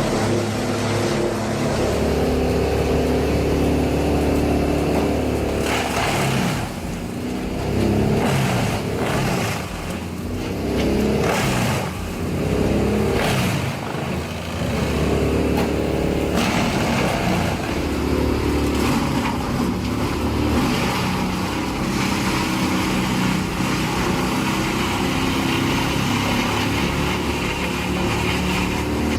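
A large engine running under load, its pitch rising and falling several times through the middle, then settling to a steadier drone.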